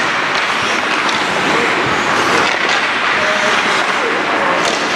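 Ice hockey rink noise during play: a steady hiss of skates on the ice, with scattered sharp clicks of sticks and puck.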